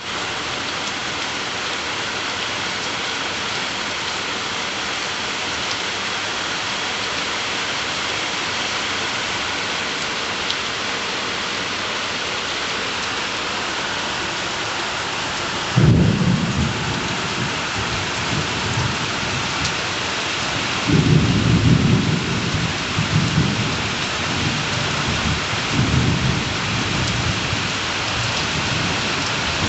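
Heavy rain pouring down in a steady hiss. About halfway through a sudden deep rumble breaks in, and further deep rumbling bursts come and go over the rain until the end.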